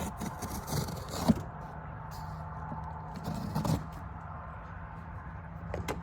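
A cardboard shipping package being opened and handled: scraping and rustling with a few sharp knocks, busiest in the first second and a half and again about three and a half seconds in.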